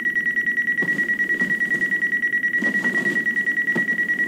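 Electronic alarm clock going off: a rapid, evenly pulsed beeping over a steady high tone.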